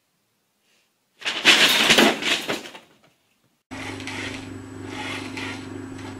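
A paper bag crackles loudly for about two seconds as a cat pushes into it, then fades. After a short silence a small toy car's electric motor starts whirring, a steady hum with a pulsing hiss.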